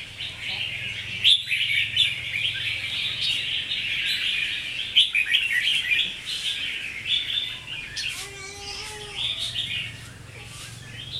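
Red-whiskered bulbuls singing and chattering, a dense, continuous run of quick chirps and warbles.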